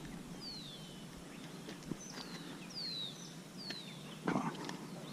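A bird calling repeatedly with short, clear whistles that slide downward in pitch, about four notes a second or so apart. A brief louder noise comes near the end.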